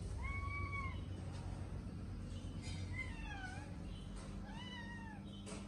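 A kitten meowing three times in thin, high calls: the first held level, the second rising and then sliding down, the third shorter and arched.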